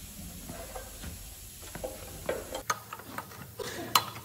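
Tools and metal parts being handled: scattered light clicks and short scrapes over a low steady hum, with one sharp click near the end.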